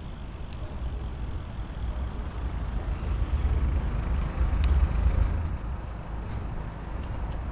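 Street traffic and road rumble picked up by an action camera on a moving bicycle: a steady low rumble that grows louder midway, with a few faint clicks in the second half.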